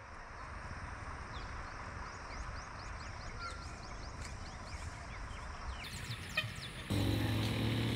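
Open-air evening ambience: many short, high, downward-sliding bird chirps over a steady background hiss. About a second before the end, a steady low hum with a few pitched tones starts suddenly.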